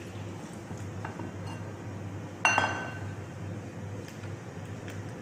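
Light clinks of a wire whisk against a glass mixing bowl, then about two and a half seconds in one loud clink with a short glassy ring, as an empty glass bowl is set down on the stone counter.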